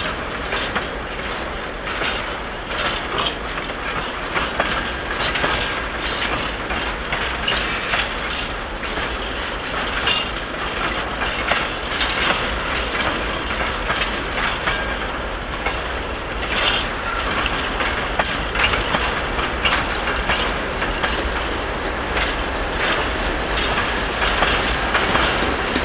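2M62 two-section diesel locomotive with 2D49 engines hauling a freight train: diesel engines running under load with the rumble and irregular clicking of the train's wheels. It grows louder toward the end as it nears.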